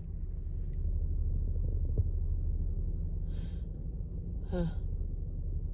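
A woman sniffing through her nose, then a short voiced gasp a little past halfway, the kind of breathing that leads up to another sneeze, over a steady low hum.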